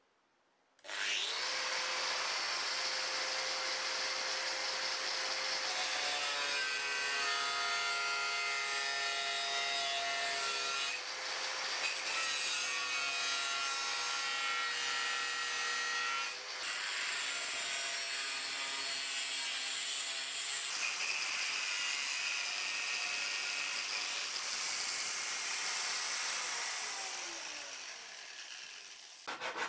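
Angle grinder cutting the steel blade of an old coal shovel, starting about a second in and running steadily, its pitch shifting a few times as it works. Near the end it falls in pitch and fades as it winds down.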